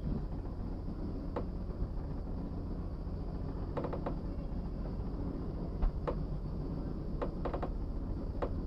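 Narrowboat engine running steadily at low speed, a constant low hum, with scattered light clicks, some single and some in quick little clusters.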